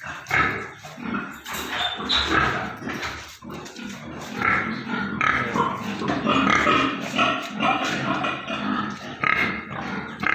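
Yorkshire pigs grunting and squealing, many at once and without a break.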